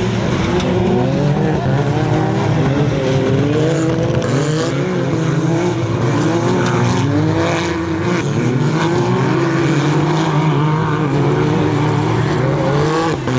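Off-road UTV race car engines revving hard, their pitch climbing and dropping again and again over a steady low drone.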